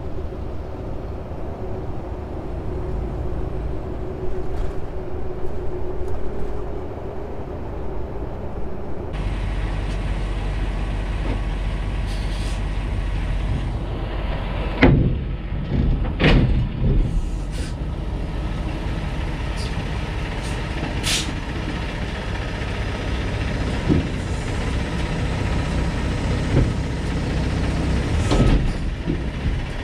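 Steady engine and road drone inside a semi-truck cab at highway speed. About a third of the way in it gives way to the truck's diesel idling as the tractor backs under a trailer to couple, with a few loud hisses and clunks near the middle.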